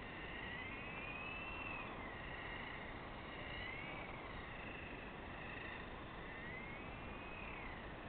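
Electric motor of a remote-controlled car whining, its pitch rising and falling as the car speeds up and slows down.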